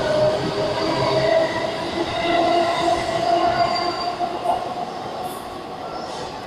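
A JR East E233-1000 series electric train pulling out and gathering speed. Its running noise carries a whine that climbs slightly in pitch, and the whole sound fades as the last car passes and the train moves away.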